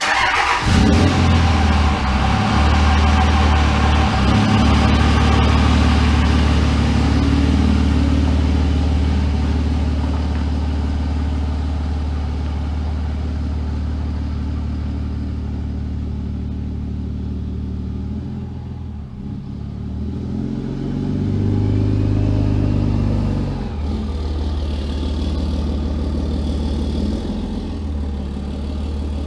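Pickup truck engine running steadily close by, swelling briefly about twenty seconds in.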